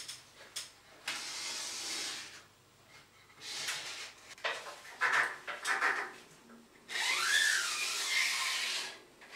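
Timber batten, spirit level and permanent marker rubbing and scraping against a wall as a level line is marked on it. It comes as a few strokes of one to two seconds, the longest near the end with a brief squeak.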